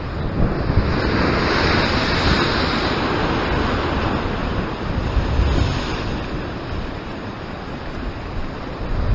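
Ocean surf surging and foaming over coastal rocks, with wind buffeting the microphone. A wave washes in strongly about a second in, and the surf eases a little near the end.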